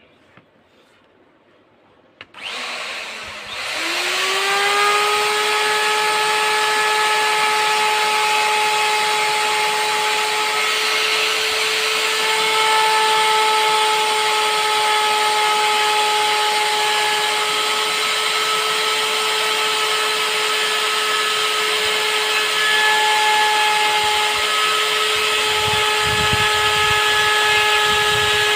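Handheld CNC router's spindle motor starting about two seconds in, its whine rising in pitch as it spins up, then running at a steady high whine. A rougher low rumble joins near the end.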